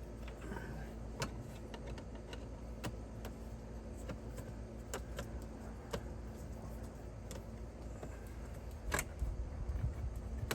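Scattered small clicks and clinks of a screwdriver working the screws on a car's plastic dashboard side panel, the loudest near the end, over a low steady hum.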